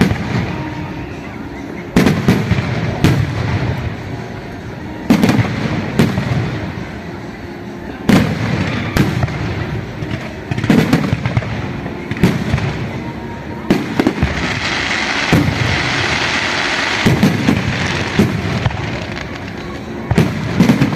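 Fireworks going off: a string of loud bangs every second or two, each trailing into a rolling rumble, with a crackling hiss that swells for a few seconds past the middle.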